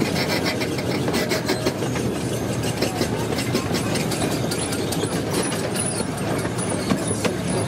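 Small excursion train running along its track, heard from aboard: a steady rumble of wheels on rails with frequent irregular clicks and clacks.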